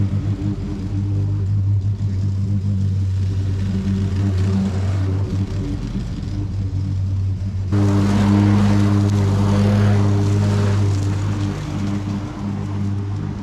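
Lawn mower engine running steadily while mowing. About two-thirds of the way in the sound changes abruptly and becomes louder, with more hiss over the engine hum.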